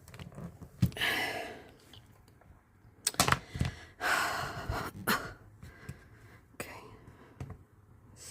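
Hard cast-resin puzzle pieces knocking and clicking together as they are forced by hand, with two long, effortful breaths of exertion.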